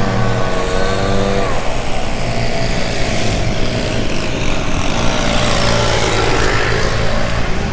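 Steady wind and road rumble from riding a road bicycle, with the hum of a passing motor vehicle. One engine tone drops slightly and fades out about a second and a half in, and another comes up and rises in pitch later on.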